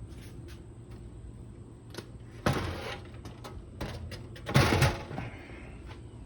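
Handling noise: a few clicks and knocks, with two louder scraping thumps about two and a half and four and a half seconds in, over a steady low hum.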